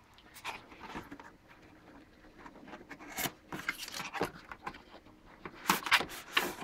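Cardboard graphics-card box being handled and slid out of its sleeve: scattered rubs and scrapes of cardboard on cardboard, the loudest a cluster of scrapes about six seconds in.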